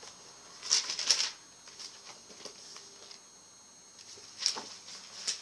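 Paper pages of a spiral-bound school notebook being opened and flipped, rustling in two short bursts: about a second in and again near the end.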